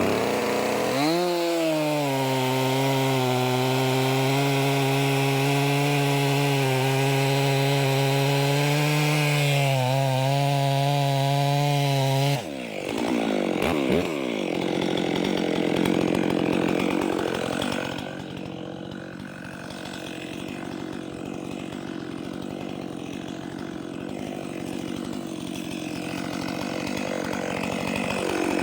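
Stihl MS 400 C two-stroke chainsaw held at high revs under load, cutting through a log for about twelve seconds. The engine note then drops, revs briefly, and settles to a quieter idle. It revs up again near the end.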